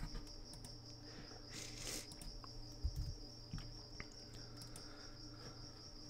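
Faint steady high-pitched whine over a low hum, with a brief soft hiss about one and a half seconds in and a few soft computer mouse and keyboard clicks between about two and four seconds in.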